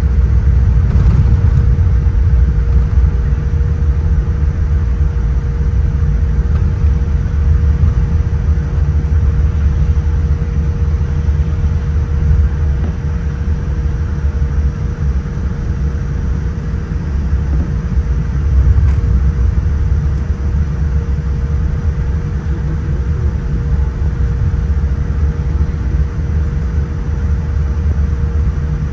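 Boeing 787-9 cabin noise while taxiing: a steady low rumble from the engines at low thrust and the wheels rolling, with a faint constant hum throughout.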